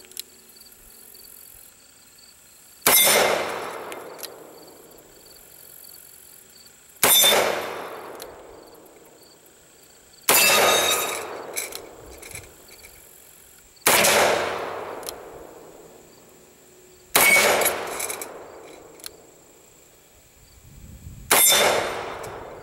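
Six shots from a Colt Lawman Mk III .357 Magnum revolver with a 4-inch barrel, fired slowly one at a time about three to four seconds apart with hot-loaded .357 Magnum rounds. Each report is loud and sharp and dies away in a long echo.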